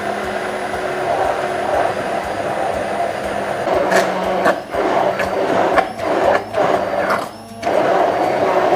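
Immersion blender whirring in a tall plastic beaker, its blade churning egg, oil and lemon juice as they emulsify into thick mayonnaise. In the second half the sound breaks off briefly several times, with sharp clicks.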